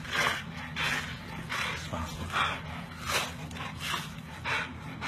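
Pit bull vocalizing in a steady run of short, breathy sounds, about one every three-quarters of a second.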